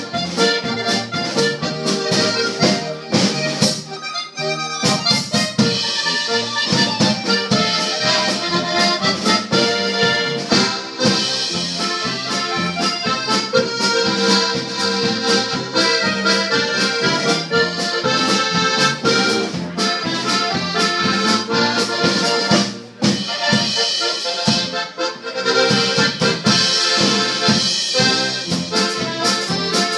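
Diatonic button box accordion and a second accordion playing a polka together, reedy chords and melody over a steady bouncing bass beat.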